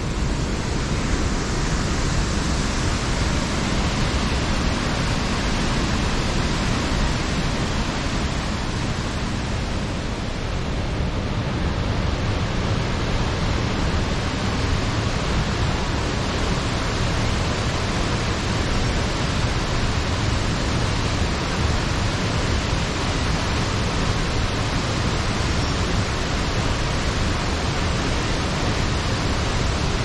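Steady rushing of Athirappilly Falls, water pouring over the rock face into the pool below.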